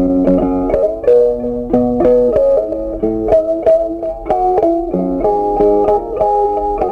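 Background music: a guitar melody of plucked notes picked one after another, several a second.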